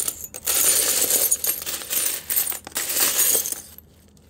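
Small glass scraps (fused-glass cutoffs) clinking and rattling against each other in a plastic tub as a hand sifts through them, a dense clatter that stops near the end.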